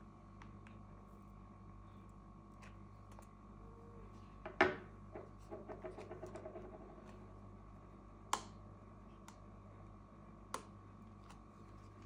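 Handling noise of an opened aluminium laptop and small tools on a tabletop: a sharp knock about four and a half seconds in, followed by a quick run of fading clicks, then another knock and a lighter click later on.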